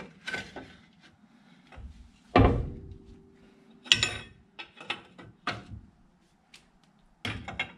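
Steel suspension parts and hand tools knocking and clinking. A heavy metal clunk about two and a half seconds in rings briefly, and a sharp clink and several lighter taps follow.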